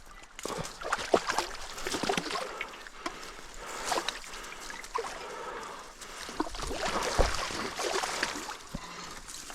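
Creek water splashing and sloshing in irregular bursts, as when wading or moving things through shallow water.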